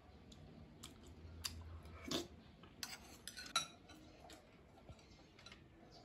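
Spoons clinking and scraping in small bowls as two people eat canned apricots: scattered light clicks at irregular times, the loudest about three and a half seconds in.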